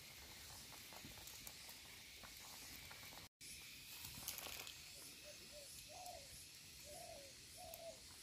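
Faint outdoor ambience: scattered small crackles from a wood cooking fire, and in the second half a bird's short calls repeated about six times. The sound drops out completely for a moment about a third of the way in.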